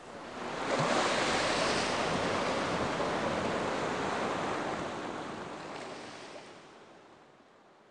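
Ocean surf: a wash of breaking waves that swells up within the first second and then slowly fades away.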